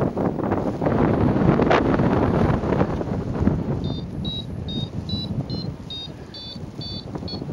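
Wind buffeting the microphone in flight. From about four seconds in, a series of short, high electronic beeps comes a little over twice a second: a paragliding variometer's lift tone, signalling that the glider is climbing.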